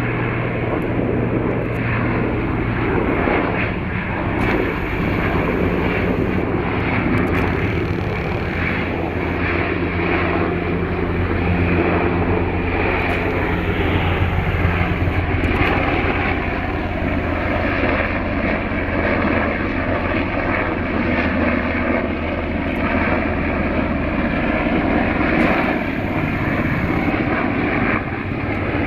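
Military aircraft engines running steadily, a continuous hum whose pitch shifts slowly as the plane moves.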